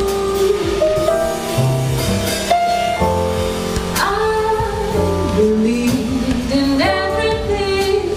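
Live jazz combo playing: a woman sings long held notes that slide between pitches, over upright double bass, grand piano and drum kit.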